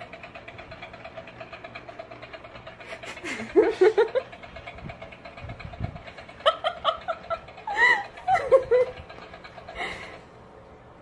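A person laughing in short bursts, over a steady low hum with a faint rapid buzz.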